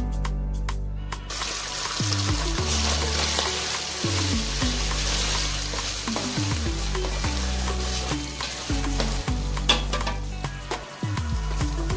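Shredded chicken sizzling as it fries in hot oil in an aluminium pot, stirred with a metal spoon. The sizzle starts about a second in and stays steady.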